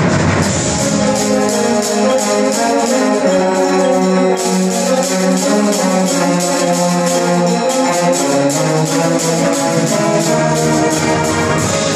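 Concert band playing at a fast tempo: sustained brass and woodwind chords over a low bass line, driven by a steady, quick percussion beat.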